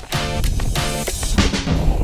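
Background music laid over the footage; its chords stop about a second and a half in, leaving a steady rushing noise.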